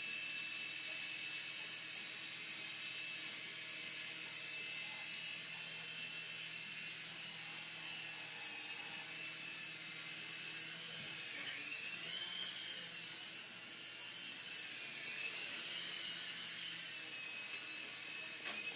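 Small electric Scout RC helicopter's motor and rotor whining steadily, the pitch dipping and rising again about two-thirds of the way through with throttle changes; a short click near the end.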